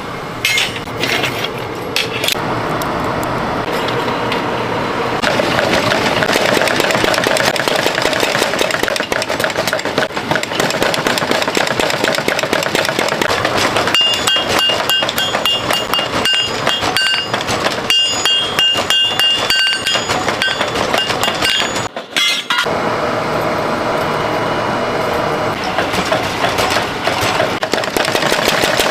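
Blacksmith shop metalworking: a steady loud mechanical noise under rapid metal-on-metal strikes and clinks on steel, with a ringing metallic tone for several seconds in the middle. The sound drops out briefly about two-thirds of the way through.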